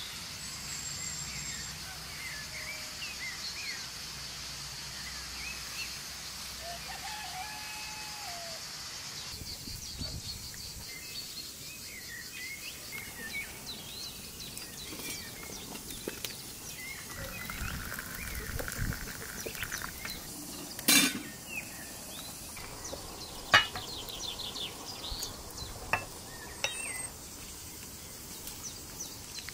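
Small birds chirping and singing, with a steady high hiss behind them for the first third. In the later part come a few sharp clinks and knocks of cookware being handled, the loudest about two-thirds of the way through.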